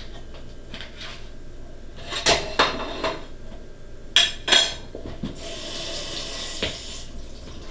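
Dishes and cutlery clinking on the kitchen counter, four sharp knocks in two pairs, then a kitchen tap running for about a second and a half as a spoon is rinsed under it in the sink.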